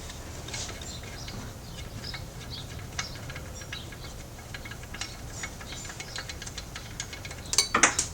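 Socket ratchet clicking in uneven runs of sharp ticks as a 12 mm bolt on the alternator mount is backed out, with a louder clatter of clicks near the end.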